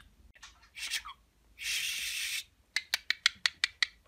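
Green budgerigar making small sounds: a brief chirp, a raspy hiss just under a second long, then a quick run of sharp clicks.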